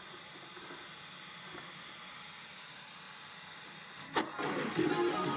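Steady hiss of static from an ITT Touring 120 radio cassette recorder tuned between stations. About four seconds in there is a sharp click, and a station comes in louder with music.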